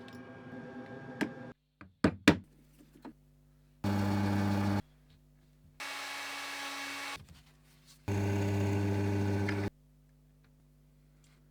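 A few sharp knocks of wood and tool handling, then a power tool motor running in three short bursts of a second or so each, starting and stopping abruptly; the middle burst is quieter.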